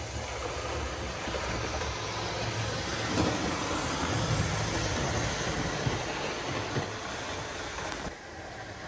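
00 gauge model trains running on the layout track: a steady motor hum and wheel rumble on the rails. It is slightly louder around the middle as an HST set passes close by, and drops a little near the end.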